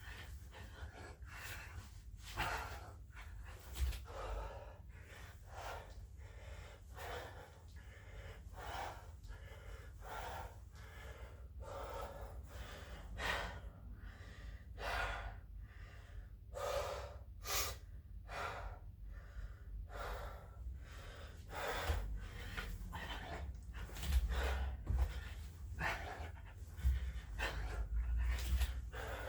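A man breathing hard and gasping during burpees, roughly one loud breath a second, with dull low thumps that come more often near the end.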